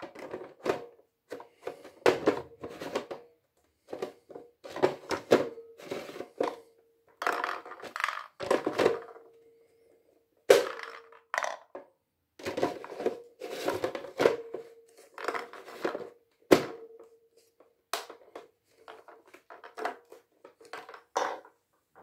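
Hard plastic parts of a Samsung VW9000 vacuum's dust container and multi-cyclone unit knocking, clicking and scraping together as they are handled and taken apart, in short irregular bursts.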